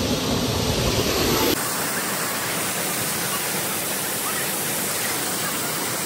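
Steady rush of a waterfall, an even noise with no pitch to it. About one and a half seconds in, the deep rumble under it drops away abruptly and the rush goes on thinner.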